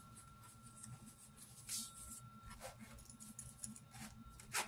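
Faint handling sounds of a knife box and its paperwork being packed up: soft scattered rustles and clicks, with a sharper click near the end, over a steady low hum.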